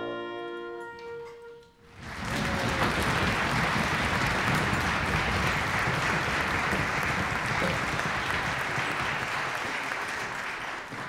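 A held musical chord fades out, then audience applause starts about two seconds in and continues steadily, thinning near the end.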